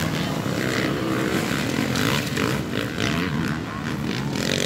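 Several motocross dirt bikes racing past at once, their engines revving up and down through the gears as they accelerate.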